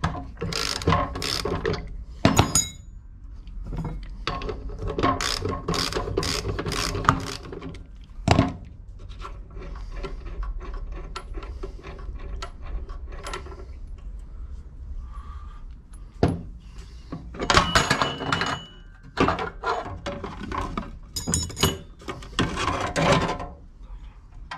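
Socket ratchet wrench clicking in quick runs as it works the arbor bolt of a Yato YT-82181 cut-off saw's abrasive disc, with single metal knocks and clatter as the disc and its flange are handled.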